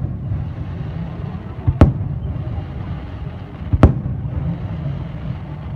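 Fireworks shells bursting overhead: two sharp bangs about two seconds apart, each with a smaller crack just before it, over continuous background noise.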